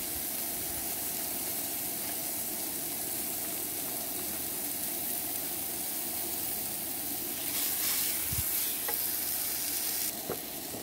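Sliced mushrooms sizzling in a frying pan on a two-burner camp stove. About eight seconds in, a slice of ham goes into the pan, and the sizzle grows louder for a second or two, with a soft thud as it lands.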